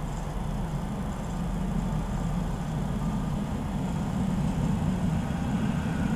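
Manchester Metrolink M5000 tram running past at close range: a steady low rumble of its wheels and running gear on the rails.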